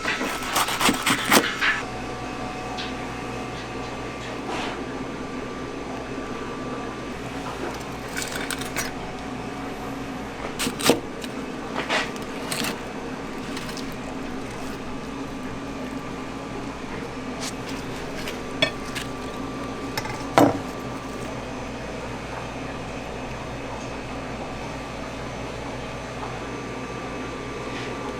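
Steady machine hum in a kitchen, with a few short clinks and knocks of utensils and dishes: one a little after ten seconds in, two around twelve seconds, and one around twenty seconds.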